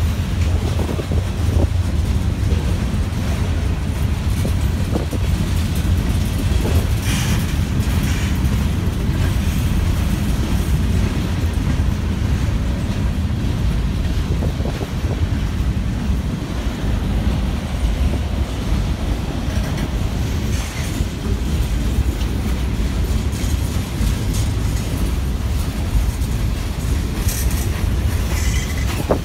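Norfolk Southern freight train's cars rolling past, a steady loud rumble of wheels on rail joints, briefly brighter and hissier about seven seconds in and again near the end.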